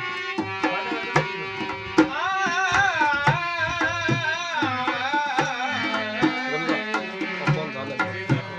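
Rajasthani folk song: a hand drum, tabla-like, plays a steady rhythm under a melody line. Through the middle the melody is held and bent up and down in ornamented turns.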